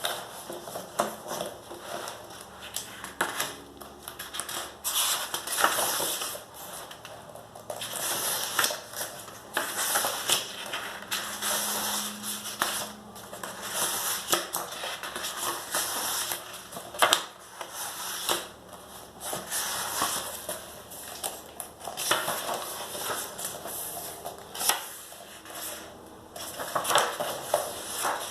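Paper rustling and crackling as the pages of a coloring magazine are handled and turned, in irregular bursts a second or two long with sharp clicks.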